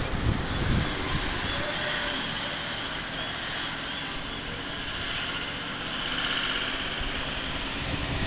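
Town street ambience: road traffic rumbling past, with gusts buffeting the microphone near the start. Short high chirps repeat through the middle.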